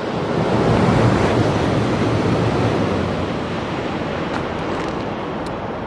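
Train passing at speed out of sight, a loud rushing noise that swells in the first second and then slowly fades.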